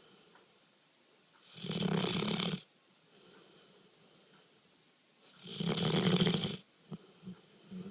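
Labrador retriever snoring loudly in its sleep: two long, deep snores about four seconds apart, with a quieter breath between them and a few faint clicks near the end.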